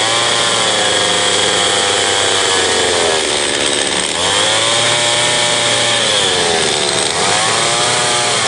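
Gas chainsaw cutting into a wooden log, its engine pitch rising and falling about three times as the saw revs and bogs in the cut.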